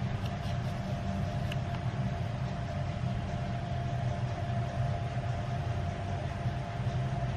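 Steady low mechanical hum with a faint, thin, steady whine above it, and a few faint ticks in the first second and a half.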